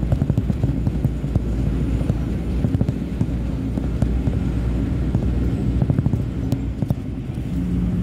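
Log truck's diesel engine and road noise heard from inside the cab while cruising, a steady low rumble with small scattered rattles and clicks. A steady drone sets in near the end.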